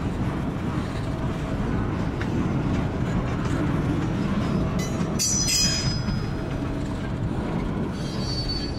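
Railroad tank cars rolling along the track: a steady low rumble of wheels on rail, with a high wheel squeal about five seconds in and a shorter one near the end.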